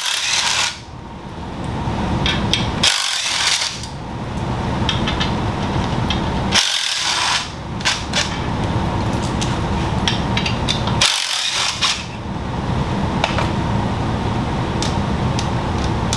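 Cordless drill/driver running in several long runs, spinning out the bolts that hold the clutch pressure plate to the BMW M20 engine's flywheel, with short breaks where the sound changes to a higher hiss.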